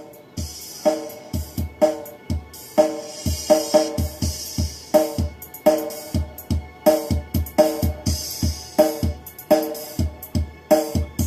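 Recorded music with a steady drum beat played through four 10-inch speakers driven by a Firstclass FC 609 PM powered mixer, heard in the room as a sound test of the mixer's built-in amplifier.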